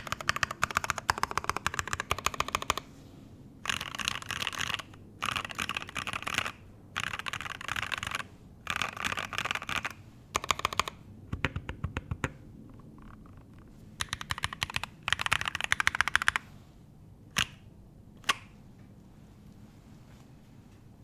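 Typing on a Satisfaction 75 mechanical keyboard with stock Alpaca V2 linear switches on a brass plate, no plate or case foam, and PBT keycaps. Fast continuous keystrokes give way to bursts of typing with short pauses, then two single key presses near the end.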